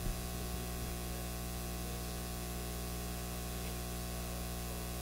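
Steady hiss with a low electrical hum: the background noise of the recording, with no other sound.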